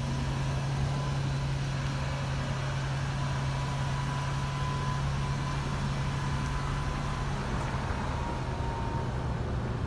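A Ford Transit van's engine idling, a steady low hum.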